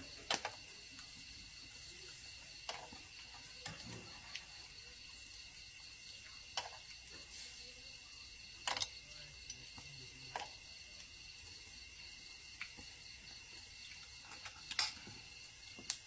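Scattered sharp clinks of metal tongs and a spoon against a moo kratha grill pan and steel bowls, over a steady high-pitched chirring of insects.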